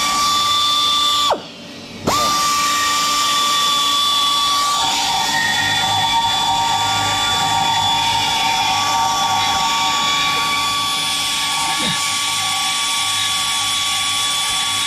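Die grinder with a burr running at a high, steady whine as it grinds corroded, porous cast aluminium-silicon alloy out of an engine cover, clearing the pores before welding. About a second in it stops and winds down, then starts again and runs on. A rougher cutting sound joins the whine from about five seconds in.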